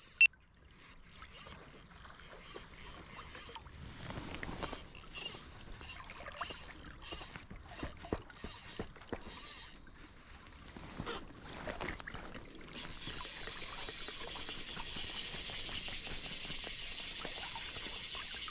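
Scattered clicks and handling noise, then about two-thirds of the way in a Lamson Velocity fly reel starts running with a steady high buzz as a hooked Atlantic salmon takes line off it.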